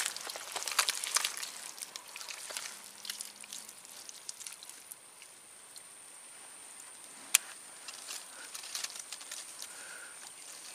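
Scattered clicks and crackles of dry leaves, twigs and burnt stubble being handled beside a swamp mud hole, with a sharp knock right at the start and another about seven seconds in. A thin steady high-pitched whine runs behind.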